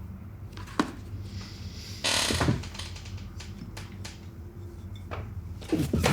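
A sharp click about a second in, a short burst of rustling noise around two seconds in, and a few knocks near the end, over a low steady hum.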